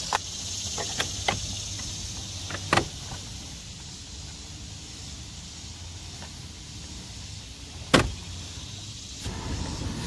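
Short, sharp plastic clicks from dashboard trim and HVAC control parts being handled, over a steady low hum. There are a few light clicks in the first three seconds and one loud snap at about eight seconds.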